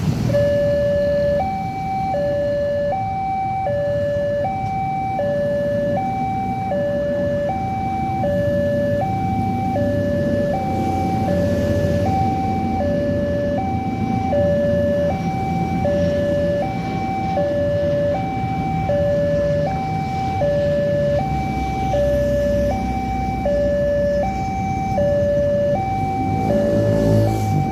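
Railway level-crossing warning alarm from a pole-mounted horn loudspeaker: an electronic two-tone signal alternating between a higher and a lower note, each held about two-thirds of a second, starting about a second in. It signals that a train is approaching and the barriers are closing. A low rumble of motorbike and road traffic runs underneath.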